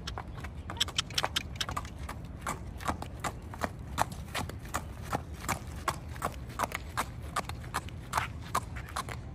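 Hooves of a Thoroughbred horse striking pavement in an even clip-clop, about three to four beats a second, as it is led in hand.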